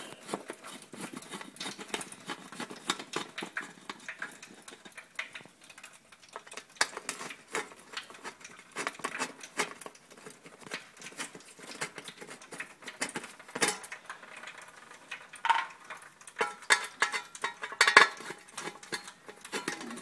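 Screwdriver work on an electric water heater's steel access cover plates, with the plates and the plastic thermostat cover being handled: scattered clicks, scrapes and light metallic taps. A run of louder clatters with some ringing comes near the end.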